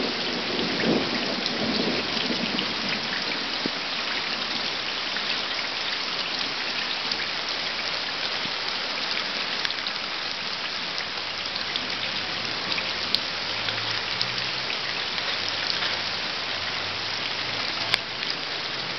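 Steady rain falling on a stone wall top and garden soil, with a low rumble of thunder dying away in the first couple of seconds. Two sharp ticks stand out in the second half.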